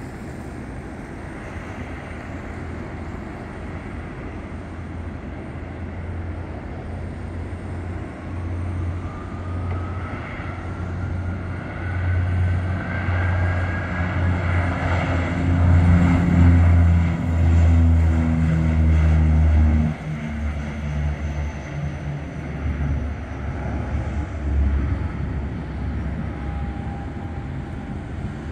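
ATR 72-212(F) twin turboprop with Pratt & Whitney PW127 engines at takeoff power through its takeoff roll and climb-out: a low propeller drone with a whine rising in pitch, building to its loudest about two thirds of the way through, dropping off sharply just after, then fading as the aircraft climbs away.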